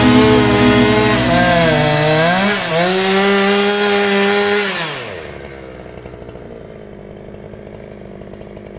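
Ogawa Pro VX8224 two-stroke chainsaw with a 28-inch bar cutting into a large tree stump, its engine pitch rising and falling as it works under load. About five seconds in the throttle is released: the pitch falls away and the saw settles into a quieter idle.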